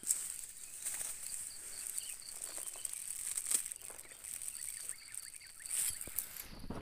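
Dry twigs and leaves crackling and snapping as someone pushes through forest undergrowth, with a few louder snaps. Under it runs a steady high insect buzz, with a rapid pulsed chirp at times.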